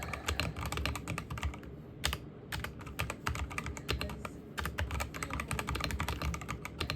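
Computer keyboard being typed on: quick runs of key clicks with a short pause about two seconds in.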